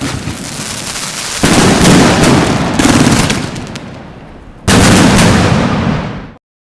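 Fireworks going off in a dense run of bangs and crackles, with two loud volleys starting about one and a half and nearly five seconds in. The sound cuts off abruptly near the end.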